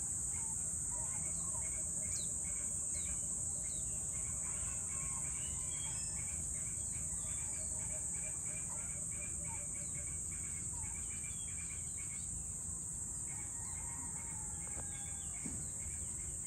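Evening outdoor ambience: a steady high-pitched insect drone with birds chirping and calling in short repeated notes, over a low, steady background rumble.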